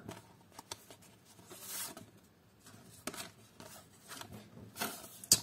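Printed picture cards being pried apart and shuffled by hand, new cards stuck together: short papery rustles and scrapes with scattered small clicks, the sharpest click near the end.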